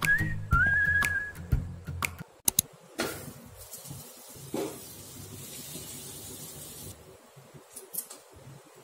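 A whistled background-music tune that stops about two seconds in. Then a few sharp clicks of a spoon against a metal kadai as butter goes in, and a faint hiss of the butter melting in the hot pan.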